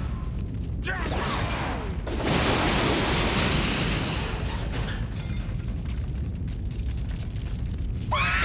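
Explosion sound effect: a sudden loud blast about two seconds in, its rumble dying away slowly over the next several seconds. A short cry gliding downward comes just before it, and another cry begins near the end.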